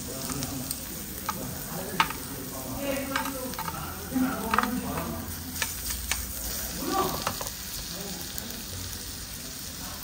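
Pork belly slices sizzling on a hot domed tabletop grill pan, with a few sharp clicks of metal tongs against the pan in the first six seconds as the slices are laid out.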